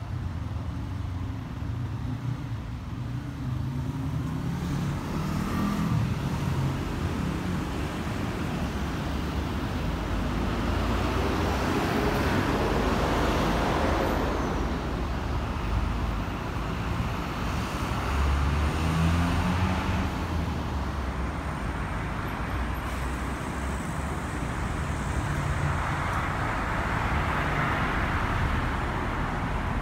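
Busy road traffic: cars and heavier vehicles passing continuously, with engines rising in pitch as vehicles pull away near the start, about ten seconds in and again around twenty seconds in.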